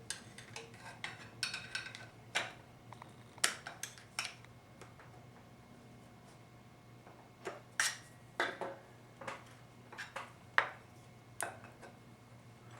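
Metal parts of a 4L60E transmission input drum clinking and knocking against each other and the bench as they are handled and worked apart: scattered sharp clicks, a few seconds of quiet in the middle, then a second run of clinks.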